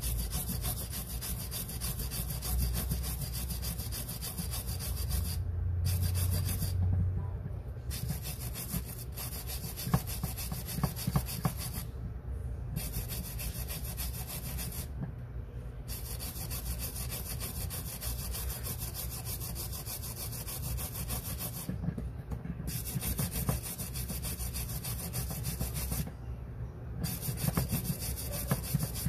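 Wooden stick rubbed rapidly back and forth against the face of an old coin held in a metal holder, a continuous scraping rub as the coin is cleaned. A few sharper clicks about ten seconds in.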